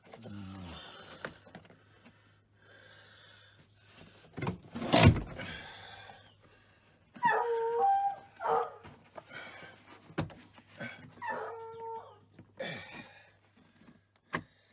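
A dog whining in short, pitched cries, twice near the middle and again later, with a falling whimper at the start. A single loud thump comes about five seconds in.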